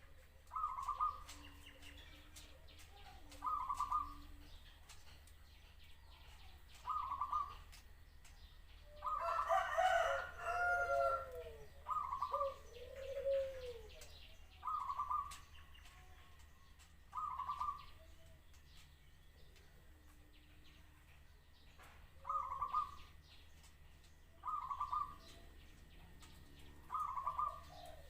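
A zebra dove cooing in short bursts, one phrase every two to three seconds. A rooster crows once in the middle, louder than the dove.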